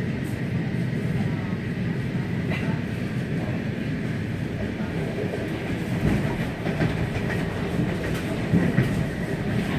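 Electric commuter train running at speed, heard from inside the carriage: a steady low rumble of wheels on rails with a few faint clicks.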